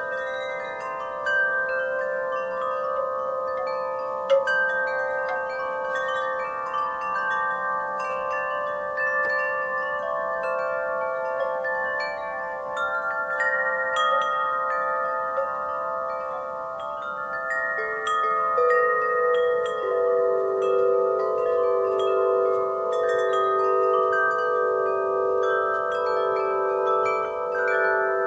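Wind chimes stirred by a breeze, their tubes striking irregularly and ringing on in overlapping sustained tones; about two-thirds of the way through, a lower-pitched chime joins and rings on.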